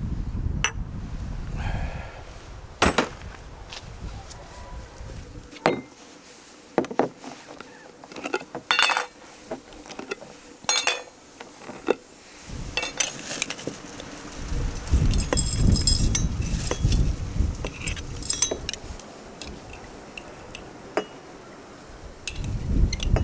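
Glass jars clinking and knocking as they are lifted off a shelf and set down on a wooden table, with metal screw lids being handled and taken off: a string of separate sharp clinks and taps.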